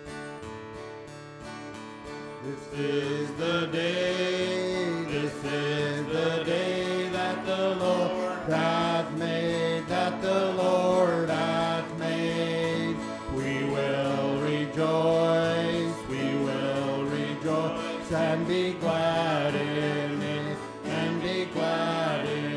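Acoustic guitars strumming a worship song, joined about three seconds in by voices singing the melody, the sound getting louder as the singing starts.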